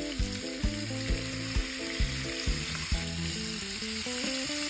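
Tuna in a tomato-paste, onion, caper and olive sauce sizzling in oil in a stainless pan, stirred with a plastic slotted spatula. Background music with a steady beat plays over it.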